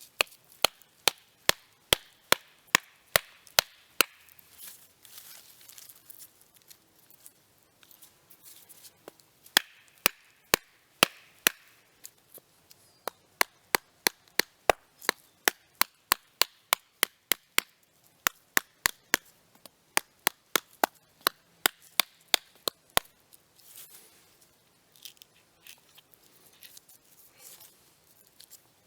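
Batoning a knife through a short piece of wood: a baton strikes the knife's spine in sharp knocks, about two to three a second, in several runs that stop a little over twenty seconds in.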